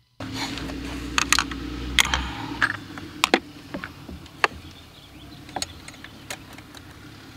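Irregular sharp clicks and light knocks from a hand ratchet and a metal hose clamp being worked on a silicone intake hose, over a steady low hum that eases off after about two seconds.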